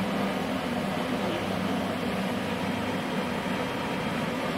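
Steady whirring hum of running machinery, even throughout with no strikes or changes.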